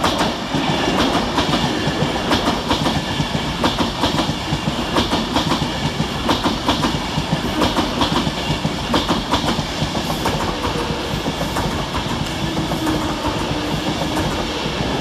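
Class 390 Pendolino electric train passing close by, with a steady run of wheel clicks over the rail joints under the rush of the carriages going past.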